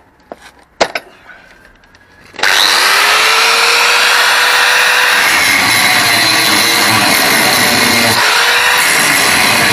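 After a couple of light clicks, a small electric angle grinder switches on about two and a half seconds in, its whine rising as it spins up, then runs loud and steady as the disc grinds the steel pivot pin off a worn sliding-door roller bracket, the pitch sagging each time the disc bites.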